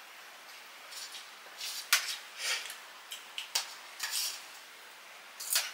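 Metal utensils clinking and scraping against dishes during a meal, a scatter of short scrapes and a few sharp clinks, the sharpest about two seconds in.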